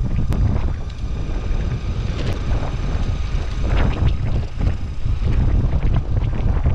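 Wind buffeting the camera microphone with a heavy low rumble, over the road noise of a Lacroix DSS50+ electric skateboard's wheels rolling on pavement. A few sharp clicks come through.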